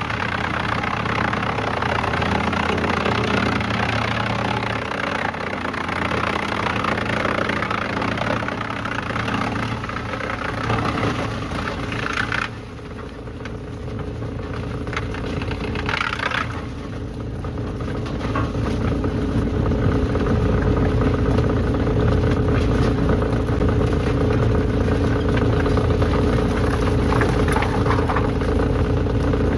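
Heavy engine-driven machinery running steadily, with a noisy rush over its drone for about twelve seconds. The rush cuts off suddenly, then a steady hum and deep rumble build up and hold.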